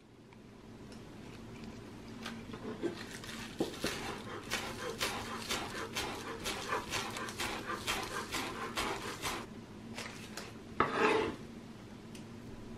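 Kitchen knife chopping chives on a wooden cutting board: a quick, steady run of light taps, several a second, for about seven seconds. Near the end, one short, louder scrape as the chopped chives are swept off the board with the knife.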